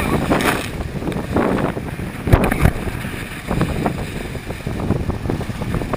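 Strong wind buffeting the microphone over water rushing and splashing along a Hobie 16 catamaran sailing in high wind, with a couple of louder slaps about two and a half seconds in.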